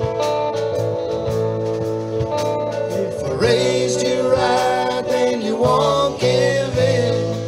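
Background country song with guitar, with singing in the middle.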